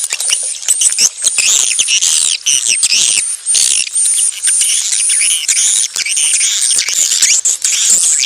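Swiftlet courtship calls: many overlapping high chirps and twitters in a dense, continuous chorus, the kind of call played to lure swiftlets into nesting houses.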